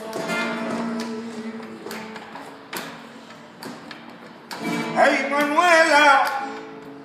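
Flamenco cante: an unaccompanied voice holds long notes, then sings a loud, wavering, ornamented line near the end. A few sharp knocks are heard in the middle.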